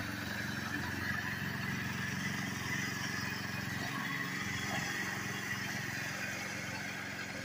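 Predator 212 single-cylinder four-stroke engine running steadily on a home-built long-tail mud motor, driving a canoe through the water.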